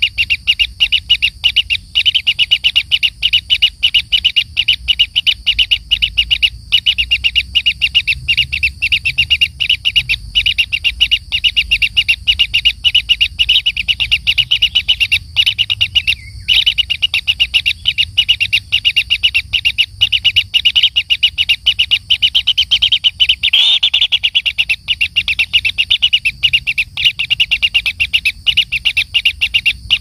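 Kingfisher nestlings in their earth burrow giving begging calls: a rapid, unbroken stream of high chirps, many a second, with one brief pause about halfway through.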